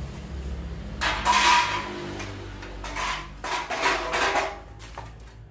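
Sewing-machine parts being handled in their shipping box: irregular clatters and rustles, in a few short bouts about a second, three seconds and four seconds in.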